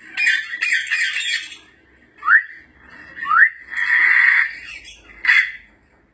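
African grey parrot calls: a harsh, noisy screech, then two quick rising whistles, a longer rasping squawk, and one short sharp call near the end.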